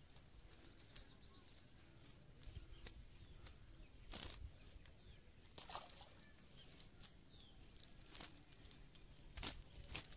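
Near silence with faint, scattered rustles of a nylon cast net being gathered by hand in the grass, a little louder about four seconds in and again near the end.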